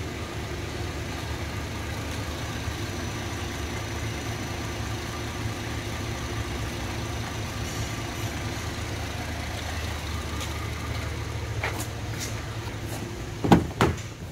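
2010 Holden Commodore's 3.6-litre V6 petrol engine idling steadily. Near the end, a few sharp knocks.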